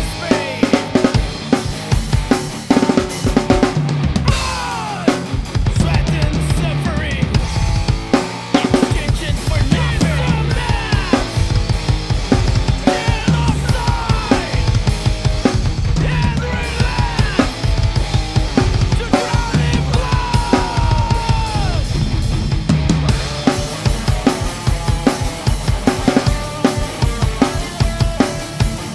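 Acoustic drum kit played at a thrash metal tempo: rapid bass drum strokes under snare hits and cymbals, no drum samples. It plays over the song's band track, with pitched guitar lines and bending notes above the drums.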